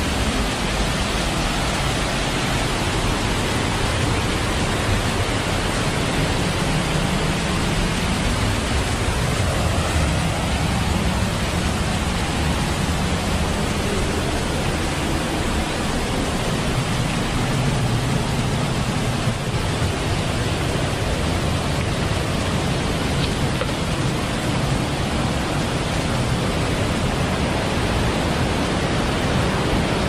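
River water rushing over rocks in rapids, a steady loud rushing noise that does not let up.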